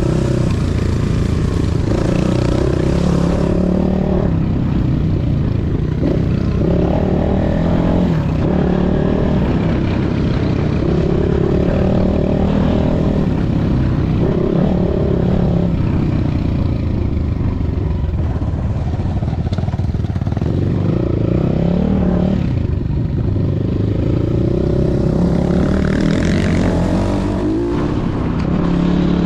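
A vehicle engine running continuously, its pitch rising and falling as the revs change.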